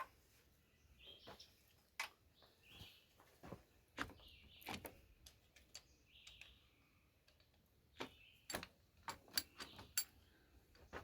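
Faint, irregular clicks and light metal knocks of a wrench working on the starter bolts of a Ford 8N tractor, with birds chirping in the background.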